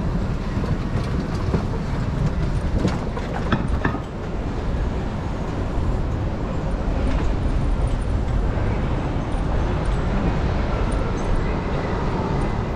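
Steady rumble of passing vehicles, with a few sharp clicks about three seconds in.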